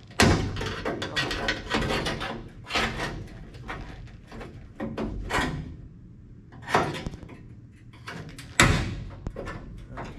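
Sheet steel of a 1969 Plymouth Fury III's roof skin and A-pillar rattling, creaking and scraping in irregular bursts as a cut section is worked back and forth by hand to break it free, then a few separate knocks with a sharp clank near the end. The section is still held at a sticky joint.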